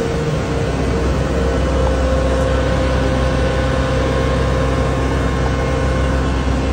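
Loud, steady industrial machinery noise: an even rushing hiss over a low hum, with a faint steady tone, from site plant such as an abrasive blasting rig.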